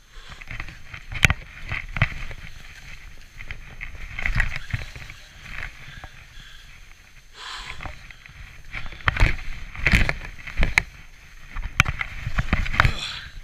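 Skis hissing through deep, soft powder in a run of turns, the hiss swelling and fading with each turn. Sharp knocks come now and then, the loudest about a second in and again late in the run.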